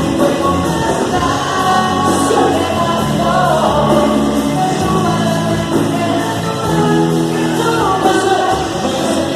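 Music with singing: a band playing under a lead vocal line.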